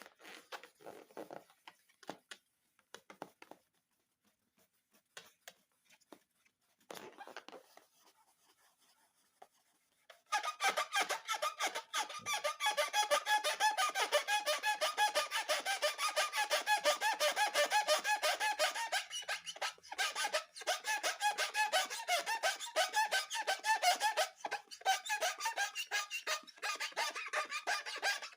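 Light scattered handling noises, then about a third of the way in a long, rapid run of rubbery squeaks begins, typical of fingers rubbing and squeezing an inflated rubber balloon.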